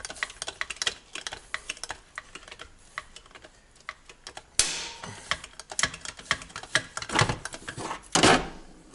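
Hydraulic knockout punch being worked on a steel electrical enclosure: a run of quick, irregular metallic clicks, with a louder rasping clank about four and a half seconds in and another near the end as the punch is shifted off the box.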